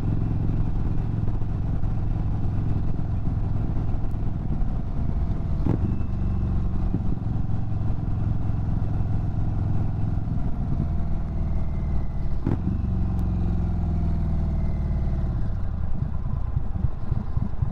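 Indian Chief Bobber Dark Horse's Thunderstroke 116 V-twin running under way while the bike slows down. The engine note steps at two gear changes, about 6 and 12 seconds in, and falls away near the end.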